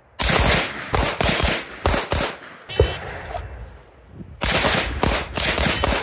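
Handgun shots from two shooters firing side by side: a fast string of overlapping shots just after the start, a single shot a little before the middle, and another fast string in the last second and a half.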